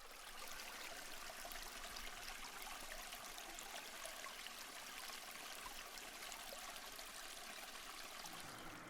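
Steady, faint rushing noise with small scattered crackles.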